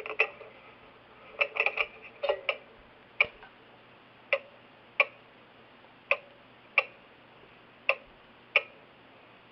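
Jauch 77 grandfather clock movement ticking out of beat: the tick and the tock come unevenly spaced, alternating a long gap and a short one (about 1.1 s and 0.7 s). In the first two and a half seconds there are several quick clustered clicks.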